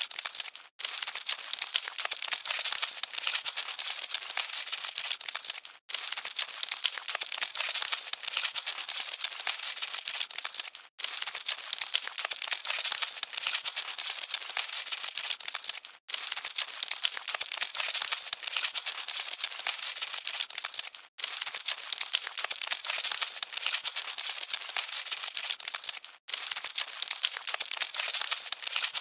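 Cockroaches scuttling: a dense, dry crackle of tiny scratches and ticks, thin and high, repeating as a loop about every five seconds with a brief gap between repeats.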